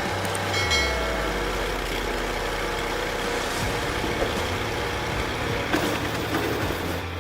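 A large diesel-powered wood grinding machine running steadily under load, with a low engine hum. A brief high squeal sounds about a second in.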